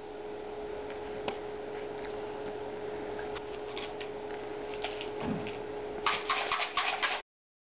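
Room noise with a steady hum, a few faint clicks, and a quick run of sharper clicks near the end before the sound cuts off suddenly.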